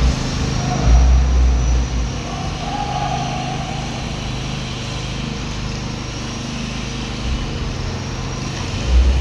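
Concrete power trowel's small petrol engine running steadily, with heavier low rumbles about a second in and again near the end.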